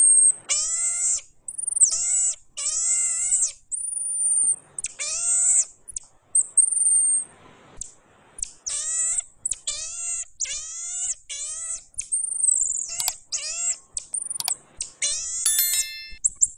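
Pygmy marmoset calling again and again: about a dozen short squealing cries, each about half a second long, alternating with thin, very high whistles.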